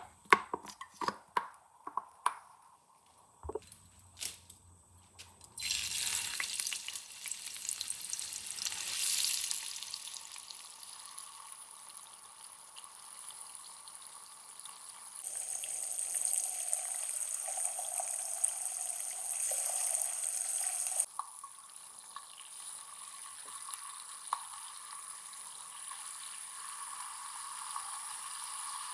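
Food sizzling in hot oil in a pan: a steady hiss that starts about five seconds in, after a few separate kitchen clicks and knocks.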